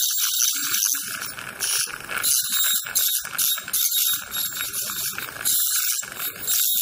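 Ultrasonic dental handpiece with a Perfect Margin tip working along a tooth's prepared margin under water spray: a high hiss with a rattling buzz, in uneven bursts with brief pauses.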